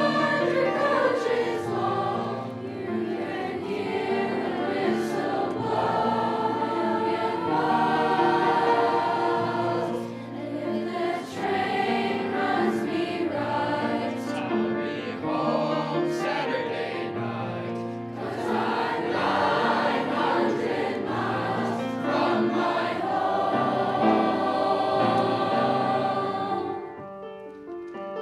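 Junior high mixed choir singing with grand piano accompaniment. Near the end the voices stop and the piano carries on alone.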